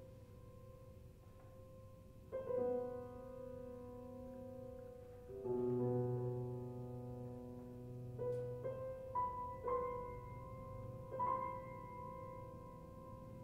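Grand piano playing slow, quiet contemporary music: a high note rings on throughout while chords are struck about two and five seconds in, then several single notes follow one another near the middle and end, each left to ring.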